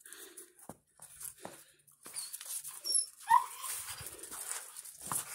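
Terriers playing around a large ball, with scuffling and light knocks, and one short high yip from a dog a little past three seconds in.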